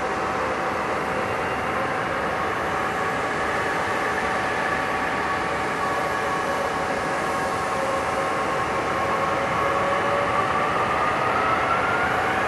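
Airbus A319's twin IAE V2500 jet engines running with a steady whine. From about two-thirds of the way in, the pitch rises and the sound grows a little louder as the engines spool up for the takeoff roll.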